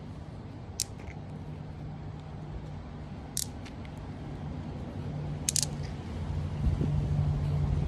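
Magnetic balls clacking together in a few sharp, brief clicks: once about a second in, again midway, then a quick double click. Under them runs a steady low hum with background noise that swells toward the end.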